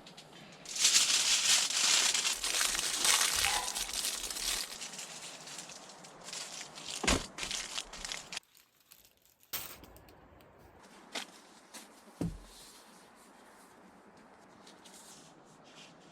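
Crinkling, rustling handling noise, loudest for the first few seconds and then trailing off. After a brief cut out, a few scattered light clicks and knocks follow.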